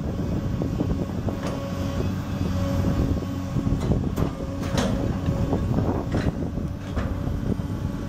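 Diesel engine of a 1998 Hyundai Robex 290LC-3 long-reach excavator running steadily while the hydraulics raise the long boom and arm, with scattered sharp clicks and knocks.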